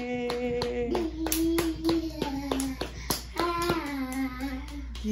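Rhythmic hand clapping, about three claps a second, over a slow tune of long held notes that step up and down in pitch.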